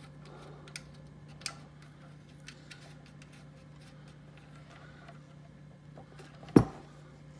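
Faint small clicks and ticks of a metal SMA coax connector being handled and screwed onto its mating jack, with one sharper knock near the end. A steady low hum runs underneath.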